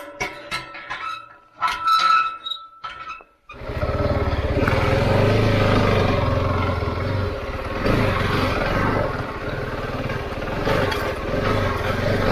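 Light metallic clicking and clinking for the first few seconds. Then a Husqvarna 701's single-cylinder engine cuts in suddenly and runs steadily as the motorcycle is ridden.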